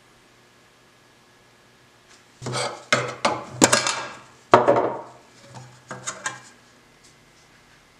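Metal lid of a can of shellac being pried loose and lifted off: a run of sharp metallic clicks, snaps and scrapes, with two loudest snaps near the middle and a few smaller clicks after.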